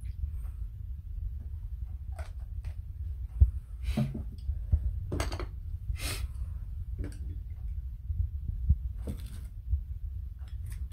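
Tableware being handled on a wooden table: scattered knocks and clicks as a sauce bottle is set down and a sauce dish and chopsticks are moved, with a sharp knock about three seconds in, over a low steady hum.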